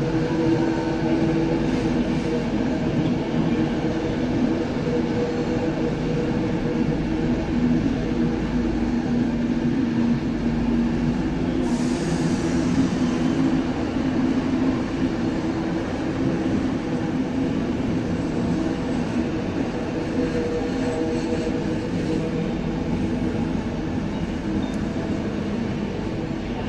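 Long-distance passenger train of white coaches with a red stripe moving slowly through the station tracks: a steady rumble and hum from wheels and running gear, easing a little toward the end. About twelve seconds in there is a brief high hiss.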